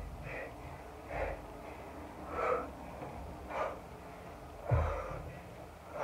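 A woman breathing hard from exertion during kettlebell lunges: five forceful exhalations about a second apart. A dull thump comes about five seconds in.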